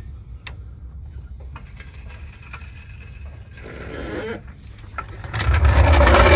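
Hydraulic floor jack being let down under an SUV's front end: a few light clicks and a short hiss as the release valve is opened, then a louder rushing noise with a low rumble about five seconds in as the jack drops and the vehicle settles.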